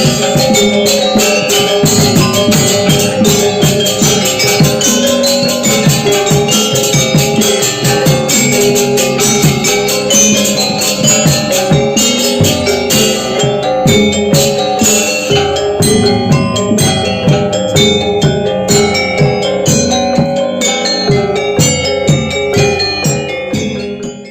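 Balinese gamelan music: a dense run of rapid mallet strikes on metallophones over steady ringing tones, cutting off suddenly at the end.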